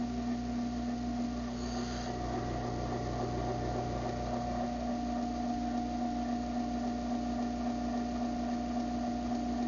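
Half-horsepower Craftsman garage door opener motor running steadily through a closing cycle, a constant hum that stops abruptly near the end as it reaches its limit.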